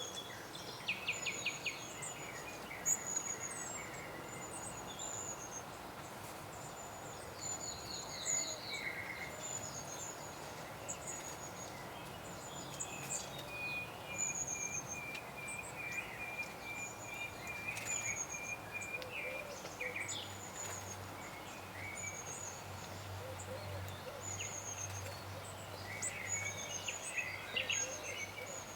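Woodland birdsong from several small songbirds: short high chirps repeat throughout, with quick trills now and then and a long, even run of notes in the middle, over a steady outdoor hiss.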